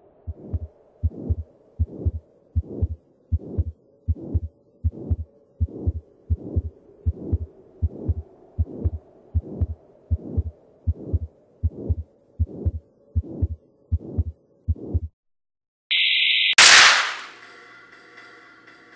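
Heartbeat sound effect, a steady lub-dub pulse a little faster than once a second over a faint low hum, stopping about fifteen seconds in. After a moment's silence comes a brief high hiss, then a loud crash that rings on with several tones.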